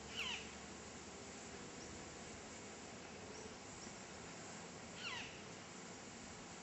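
An animal's call, twice, about five seconds apart: each a short cry that sweeps down steeply in pitch, over a steady faint hiss.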